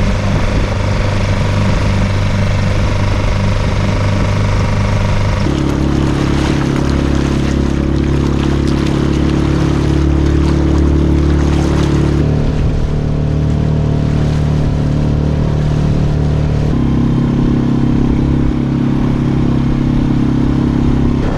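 Suzuki outboard motor running under way, pushing an inflatable boat through choppy water. Its steady drone shifts abruptly in pitch a few times, over the rush of water and wake.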